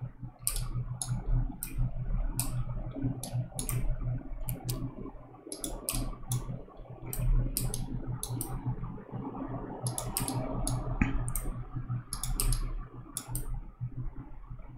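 Computer mouse clicking irregularly, often in quick pairs or clusters, over a low steady hum.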